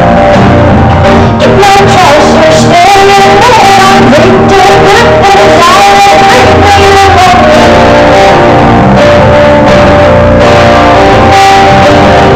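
Live band music: a female singer's voice over acoustic guitar and a backing band, loud and steady, with a held, wavering sung melody.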